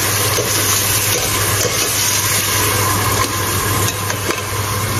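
Chopped red onions sizzling steadily as they fry in a little oil in a stainless steel pot, stirred with a metal ladle, at the stage where they are turning brown.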